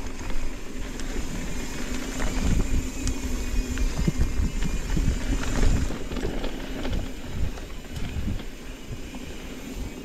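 Mountain bike rolling along a dirt trail: wind rumble on the microphone and tyre noise, with scattered clicks and rattles from the bike. It is louder through the middle and eases after about six seconds.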